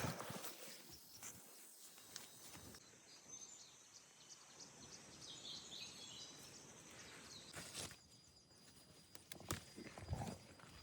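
Faint rural outdoor ambience with a few soft, high chirps partway through and some short knocks near the end.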